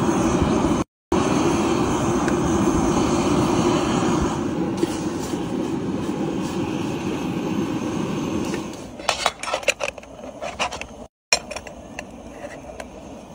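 Powerful gas camping burner running at full flame under a pot of boiling lamb, a steady loud roar. About nine seconds in it gives way to a run of sharp metallic clicks and clacks as the pressure cooker's lid and locking handle are worked.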